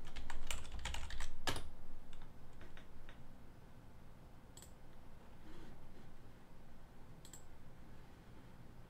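Typing on a computer keyboard: a quick run of keystrokes, then a few scattered clicks, and later two single sharp computer mouse clicks.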